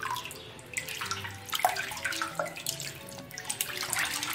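A hand sloshing and swirling through whey in a cheese pot, with irregular splashes, as it gathers the soft curd on the bottom into one mass.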